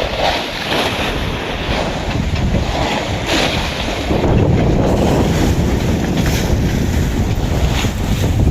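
Strong wind buffeting the microphone, getting heavier about four seconds in, over the wash of waves against the dock.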